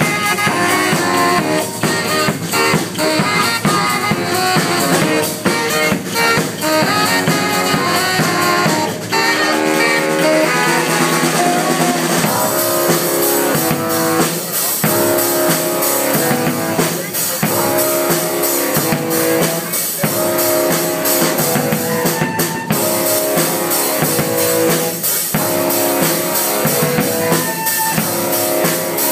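A live saxophone duo playing an up-tempo funk groove over a drum kit, the drums hitting a steady beat under the horns.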